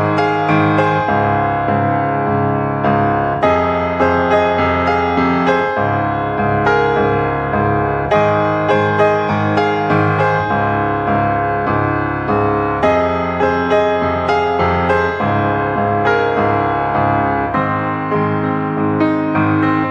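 Background piano music, a steady run of notes with regular attacks.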